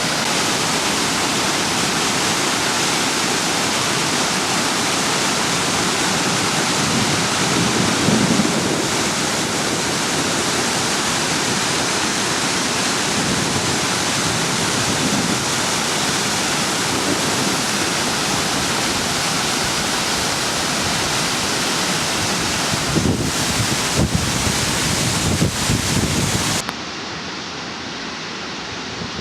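Steady, loud rush of fast-flowing rainwater in a storm-swollen ravine, with gusts of wind buffeting the microphone about eight seconds in and again over several seconds near the end. Near the end the rush cuts abruptly to a quieter, duller version of the same flowing water.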